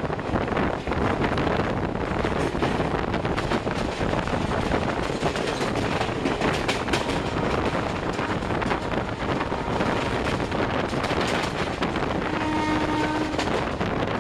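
Express passenger train running at high speed, heard from an open coach doorway: steady rumble of wheels on rails with a rapid run of clicks over the track, and wind buffeting the microphone. A brief steady horn note sounds about twelve seconds in, lasting about a second.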